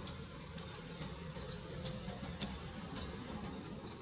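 Outdoor background ambience: a steady low hum with short, high, falling chirps every half second or so.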